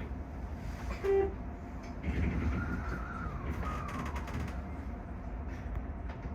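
Toyo Rapid Railway 2000-series electric train heard from the cab, a steady low rumble as it gets under way from the station, with a short beep about a second in and a faint falling whine from about two seconds in.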